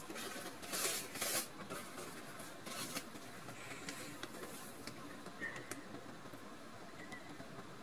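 Kitten moving about on its bedding, rustling the sheet in a few short bursts, two close together about a second in and another near three seconds, over a faint steady hiss.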